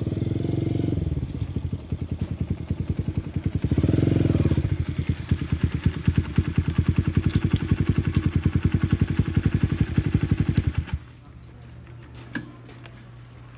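Honda Ape 100's single-cylinder four-stroke engine, revved briefly twice and then idling with even pulses, until it is switched off and cuts out suddenly a couple of seconds before the end.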